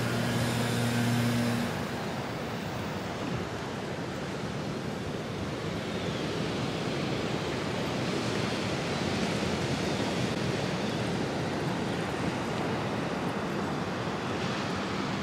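Steady rush of ocean surf mixed with wind on the microphone. A low steady mechanical hum stops about two seconds in.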